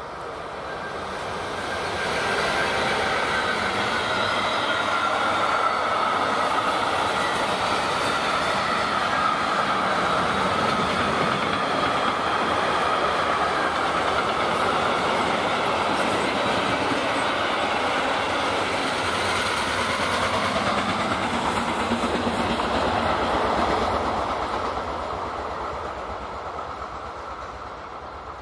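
Long freight train of mixed wagons rolling past on the main line, a dense steady rolling noise with a high steady tone over it that slowly drifts down in pitch. It builds about two seconds in, holds, and fades away over the last few seconds as the end of the train passes.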